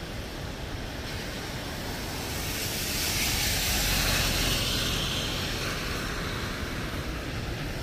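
A car passing on the rain-wet road, its tyre hiss swelling to a peak about four seconds in and then fading, over a steady rushing background.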